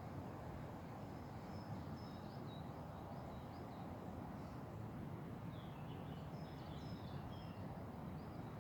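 Outdoor ambience: a steady low rumble with small birds chirping in two short spells, the first in the opening seconds and the second past the middle.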